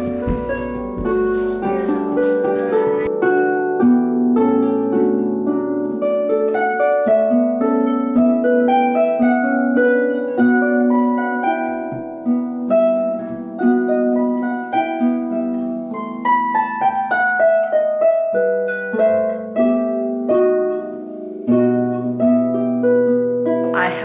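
Harp being played by plucking, a flowing melody of ringing notes over lower held notes, with a deep bass note added near the end.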